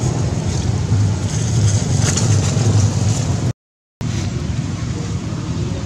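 Steady low rumbling background noise, broken by about half a second of dead silence roughly three and a half seconds in.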